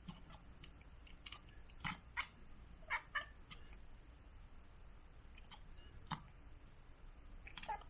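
A British Shorthair kitten chattering: a handful of short, separate chirping calls, the sound cats make when they fix on prey they cannot reach.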